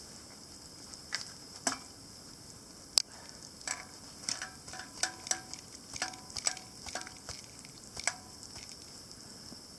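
A metal bottle clinking and tapping against a cooking pot on a camp stove: about fifteen irregular light metallic clicks, some with a short ring, the sharpest about three seconds in, over a faint steady hiss.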